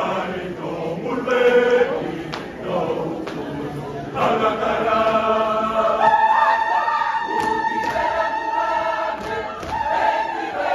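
A large choir singing, its many voices growing fuller and louder about four seconds in and holding long chords, with a few faint knocks.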